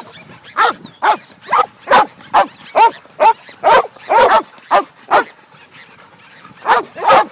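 Dog barking repeatedly, about two barks a second, with a pause of about a second and a half near the end before two more barks.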